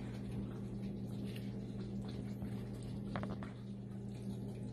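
A ladle scoops thick coconut-milk vegetable stew from a metal pot into a bowl, with faint wet sounds and a few soft clicks about three seconds in. A steady low hum runs underneath.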